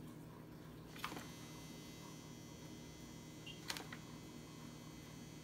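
Quiet steady hum of room tone with two faint light taps, about a second in and just before four seconds in, as sliced red onion is scattered by hand onto a pizza and picked from a metal tray.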